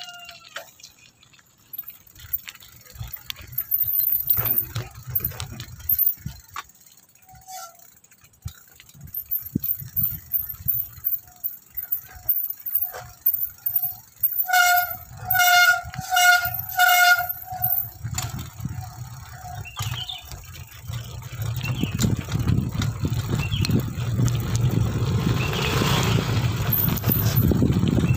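Wind buffeting and jolting rumble from a camera carried on a bicycle riding over a bumpy dirt track, heavier near the end. About halfway through, a horn gives about six short toots in quick succession, roughly two a second.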